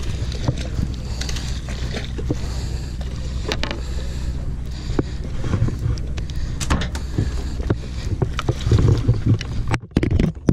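Steady low drone of a sportfishing boat's engine, with scattered clicks and knocks from a rod and reel being handled against the boat's rail.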